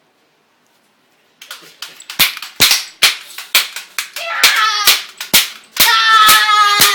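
Toy cap guns firing a quick string of sharp pops, about two or three a second, starting about a second and a half in. A child's long shouts ring out over the shots twice in the second half.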